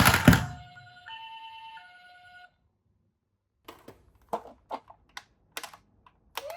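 Toy ambulance minicar's two-tone 'pee-po' siren over the clatter of it rolling down a slope, ending in a sharp knock a fraction of a second in. The siren goes on alone for about two more seconds and stops; a few light plastic clicks and taps follow near the end.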